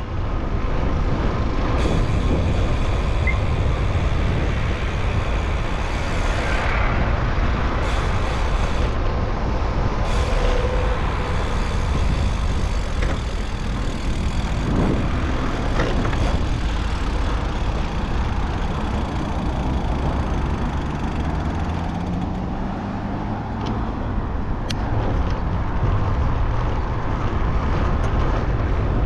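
City road traffic heard from a moving bicycle: a steady low rumble of passing vehicles, trucks among them. About 22 seconds in, one engine rises in pitch as it speeds up.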